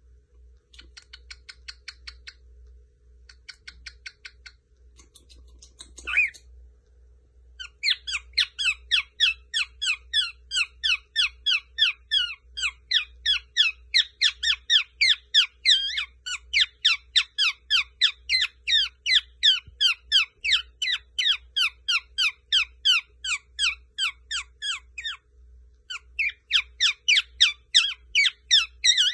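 Lutino cockatiel chattering: a few short bursts of twittering, then a long fast run of repeated downward-slurred chirps, about three a second, broken by a short pause near the end.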